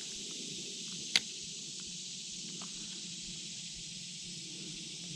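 Steady high-pitched hiss of outdoor ambience, with a single sharp click about a second in.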